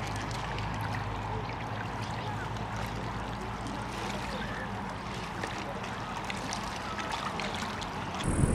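Lakeshore ambience: small waves lapping and splashing at the water's edge over a steady low rumble. Music cuts in abruptly just before the end.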